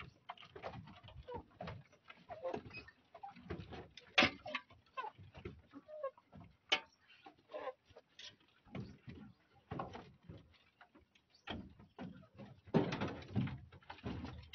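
Chickens feeding at close range: soft clucking calls among many quick pecking taps and scuffling, with a busier flurry of scuffling near the end.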